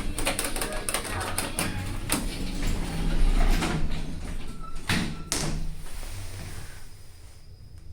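Passenger lift's automatic sliding doors running, with a rattle of clicks followed by two sharp clunks about five seconds in. After that the sound settles to a faint low hum.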